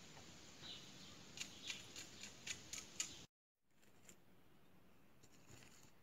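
A quick run of about seven sharp clicks, roughly three or four a second, ending abruptly; then faint quiet background with a few soft ticks.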